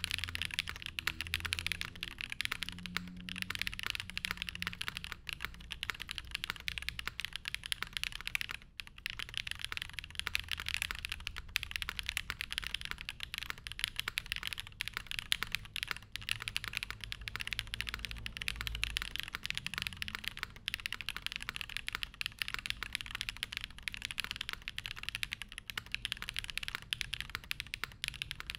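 Continuous fast typing on an F1-8X tenkeyless mechanical keyboard with an FR4 plate, Zaku switches lubed with 205g0 and 105g0, GMK Modo 2 keycaps, and tape and PE foam mods: a dense stream of keystroke clacks, with a brief pause about nine seconds in.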